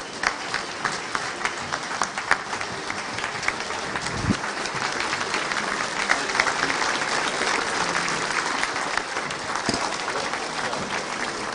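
A roomful of people applauding steadily, a dense patter of many hands clapping. There is a low thump about four seconds in.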